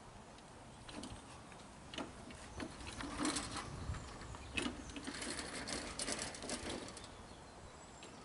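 Metal four-wheeled garden trolley rattling and clattering as a large dog tows it along, a quick uneven run of clicks and clanks from its frame and pull handle. It starts about a second in, is loudest in the middle and dies away near the end.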